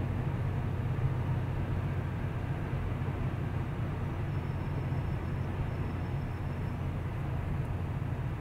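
Steady in-cabin road noise of a first-generation Mazda 6 driving on a wet road: a deep, even rumble with tyre hiss.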